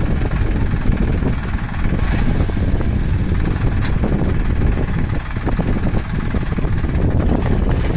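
Solis 5015 4WD tractor's diesel engine running steadily under load as its rear blade pushes soil up into a field bund.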